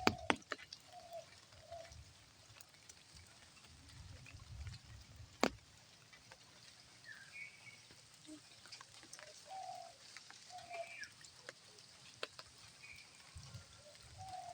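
Faint bird calls: short low notes in groups of two or three, with a few higher chirps, and a sharp click about five and a half seconds in.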